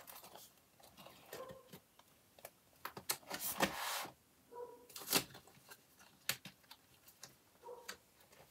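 Hands handling crisp polymer banknotes and a ring binder's plastic sleeves and card envelope: scattered clicks, crinkles and short rustles, the longest rustle about three seconds in.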